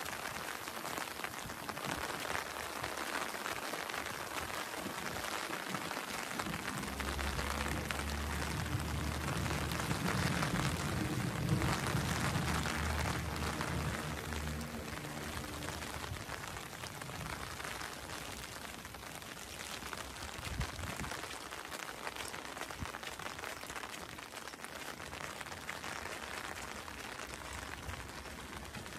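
Steady rain falling on wet stone paving. A low, steady hum joins for several seconds in the middle.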